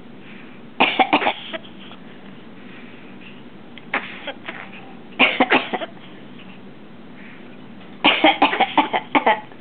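Severe macaw imitating a human cough in four bouts of several quick coughs each, the longest near the end. The cough is learned mimicry of a person, not a sign of illness.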